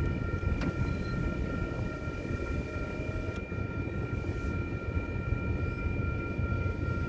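Loaded freight train of gondola cars rolling past a grade crossing: a steady low rumble of wheels on rails, with a steady high-pitched ringing over it.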